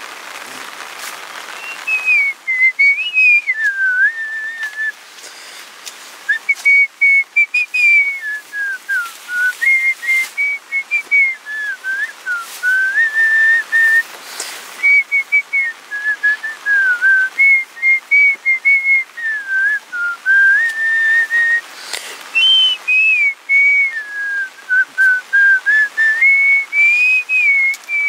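A person whistling a slow tune, one clear note gliding up and down in short phrases with brief breaks between them.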